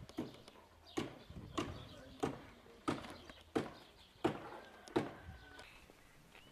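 Large shepherd dog panting close by, about eight loud breaths, one every two-thirds of a second.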